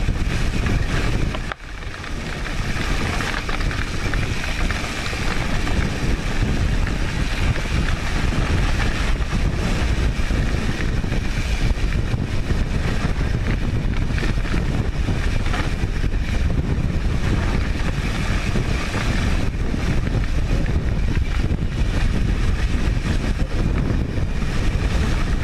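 Mountain bike running fast down a dirt trail, heard from a camera on the handlebars: a steady rumble of wind on the microphone mixed with the tyres and bike rattling over the dirt. The noise dips briefly about a second and a half in.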